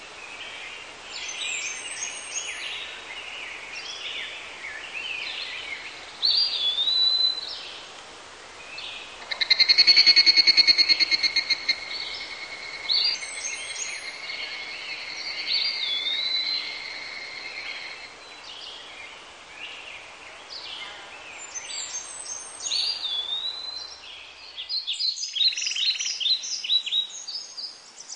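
Forest birds calling and chirping, with a clear whistle that dips and rises, repeated several times. About a third of the way in, a loud pulsing high buzz starts and settles into a steady high whine for several seconds. A dense burst of rapid chirps comes near the end.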